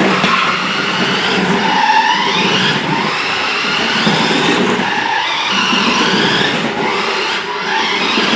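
Remote-control toy Ford GT sports car driving on a wooden floor: its small electric motor whines, rising and falling in pitch as the car speeds up and slows, over a steady hiss of wheels and gears.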